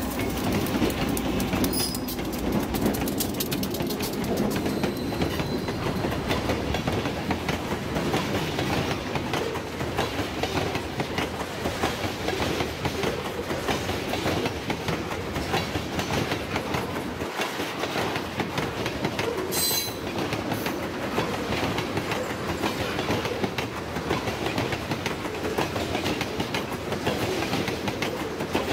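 Freight train of loaded tank cars rolling past at close range, a steady rumble with wheels clicking over rail joints. The diesel rumble of the trailing locomotive fades in the first couple of seconds, and a few brief high wheel squeals come through, the clearest about twenty seconds in.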